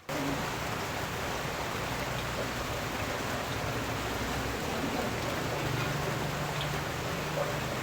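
Steady hiss of rain falling, starting abruptly.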